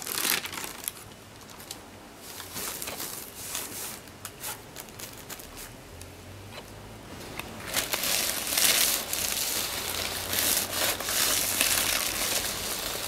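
Crinkling and rustling of stiff metallic brocade fabric and paper being handled and smoothed by hand: a short burst at the start, scattered rustles, then denser crinkling from about halfway through.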